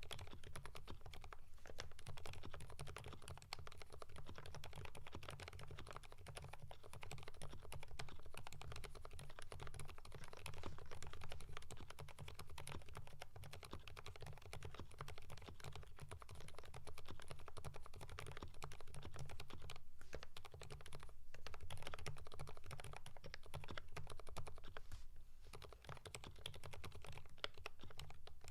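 Steady, fast typing on a Keychron V5 mechanical keyboard with lubed Kailh Fried Egg silent switches and GMK Norse keycaps: a dense stream of muted keystrokes, broken by a few brief pauses.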